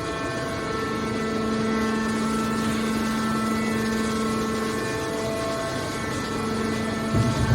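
Hydraulic baler's power unit running with a steady, even hum. A brief low thump comes near the end.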